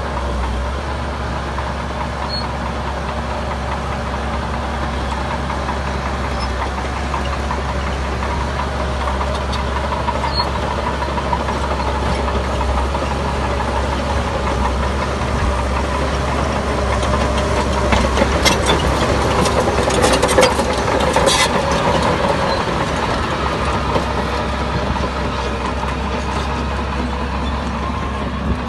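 Heavy diesel engine of earthmoving machinery running steadily, growing somewhat louder past the middle, with a cluster of sharp metallic clanks and rattles about two-thirds of the way through.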